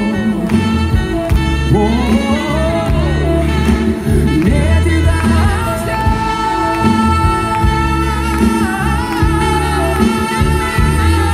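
Live concert music: a male pop singer sings wordless, drawn-out notes into a microphone over the band's backing, holding one long note in the middle.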